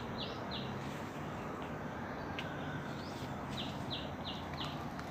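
A bird calling in a quick run of short, high notes, about three a second, at the start, then again after a pause of about three seconds, over steady outdoor background noise.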